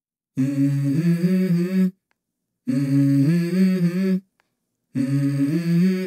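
Background music: a wordless voice humming a short stepping melody, three phrases about a second and a half long with brief silent pauses between them.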